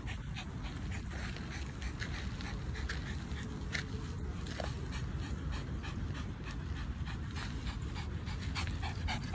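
Pomeranian panting, a run of short irregular breaths, over a steady low rumble.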